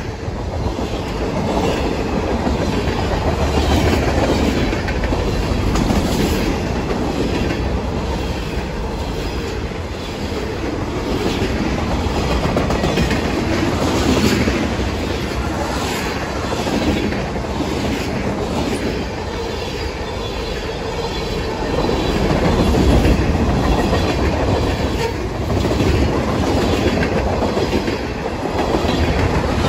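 Freight cars of a CSX freight train rolling past at speed: a steady loud rumble, with the wheels clicking over rail joints in quick clusters.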